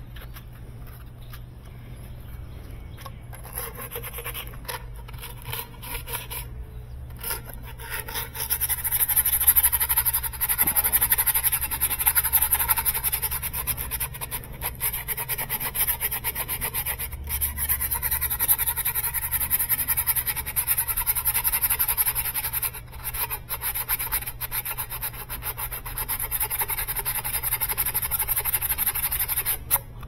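Brass tube being sanded by hand with 100-grit sandpaper to smooth off a burr: a quick, steady rasping rub, much louder from about eight seconds in, with a few short pauses.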